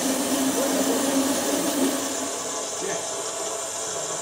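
A steady, loud hiss with a low hum under it that stops about halfway through.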